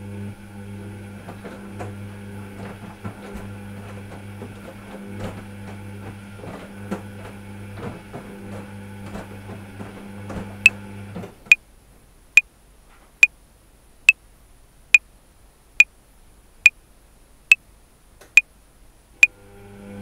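Top-loading washing machine on a cotton 60° wash: the motor runs with a steady low hum and light knocking of the drum, then stops about halfway through. A metronome ticks at 70 beats a minute, starting just before the motor stops and continuing alone after it.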